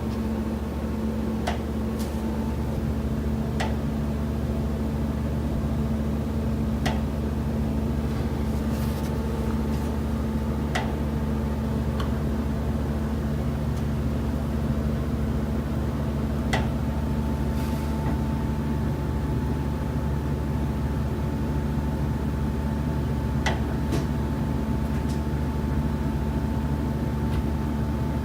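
Sharp, single knocks inside a building, about ten of them at uneven gaps of a fraction of a second to several seconds, over a steady low mechanical hum.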